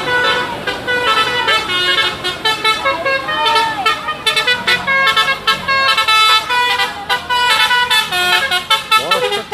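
Basuri-type musical 'telolet' air horns on a bus and a truck playing a quick tune of many short notes, several horn tones sounding together.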